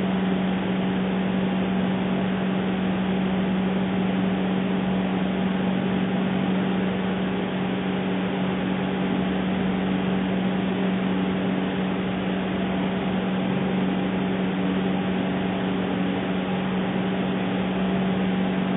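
A steady hum: one constant low tone with fainter overtones above it, over an even hiss, unchanging throughout.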